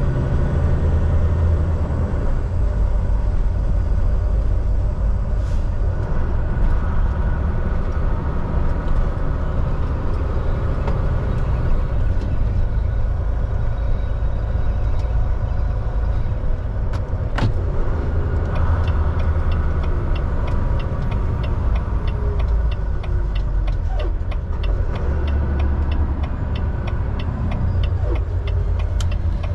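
Semi truck driving at highway speed: a steady, heavy low rumble of engine and road noise. There is a single sharp click about 17 seconds in, and a run of fast, light ticks through the last ten seconds.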